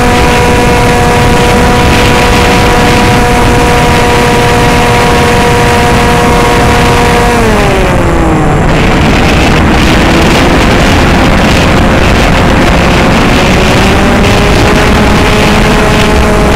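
Homemade foam RC plane's motor and propeller whining steadily, heard from the plane's onboard camera under heavy wind rush. About halfway through the pitch slides down, then climbs partway back up near the end.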